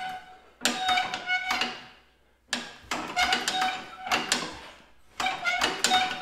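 Metallic clanking and rattling in three bursts about two seconds apart, each with a ringing metal tone: the hand crank being pulled over on a 1942 Silver King tractor's engine, which does not catch and run.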